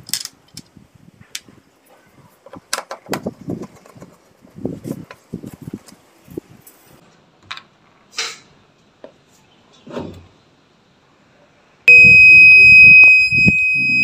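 Clicks and knocks of the washing machine's plastic control panel being handled, then, about twelve seconds in, a loud, steady high-pitched electronic beep lasting about two seconds from the Electrolux top-loading washing machine's control-board buzzer.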